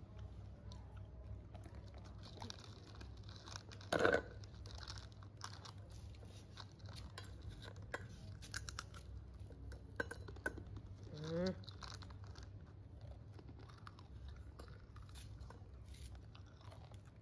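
Small clicks, taps and crinkles from handling a plastic baby bottle and scooping formula powder into it, with a louder burst of noise about four seconds in. A short rising squeak sounds about eleven seconds in.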